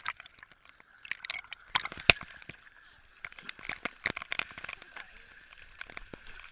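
Shallow sea water splashed at a camera sitting at the waterline: irregular smacks and patters of spray hitting it, with sloshing water. The splashes come in two clusters, the loudest hit about two seconds in, and thin out near the end.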